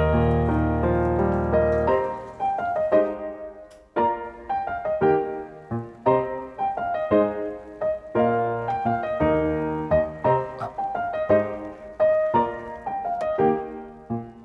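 Background piano music: a gentle melody over sustained chords with a steady pulse.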